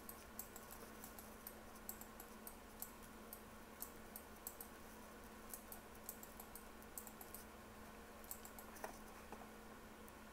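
Faint, irregular clicking of a computer keyboard, several clicks a second in places, over a low steady hum.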